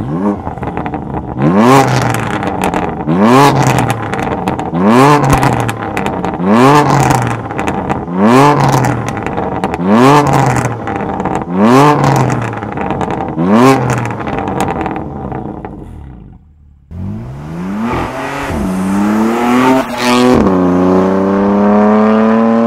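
BMW F82 M4's S55 twin-turbo straight-six, with cat-less downpipes and stock cat-back exhaust, revved eight times standing in Sport mode, each blip followed by crackles on the overrun. After a brief lull it accelerates hard: the pitch climbs, drops once at an upshift, and climbs again.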